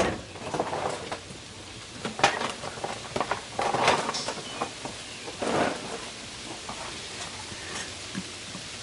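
Hand tools clattering in a scattered run of knocks and rattles that dies away after about six seconds.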